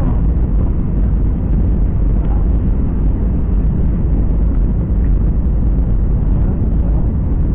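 Jet airliner cabin noise: a steady, loud, low rumble of engines and airflow heard from inside the passenger cabin.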